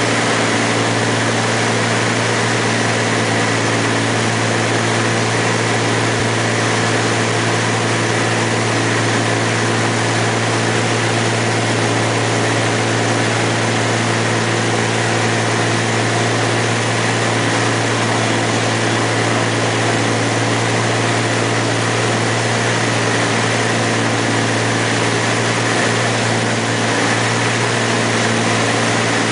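Single-engine light aircraft's engine and propeller droning steadily, heard from inside the cabin, with a low hum that holds one pitch throughout.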